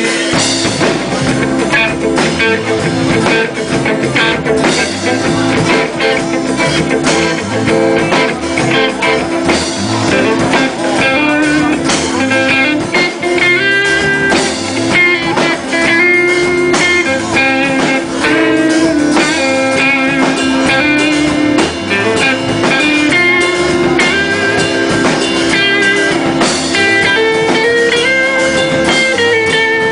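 A live rock band plays an instrumental section, with a guitar carrying the melody over bass and drums.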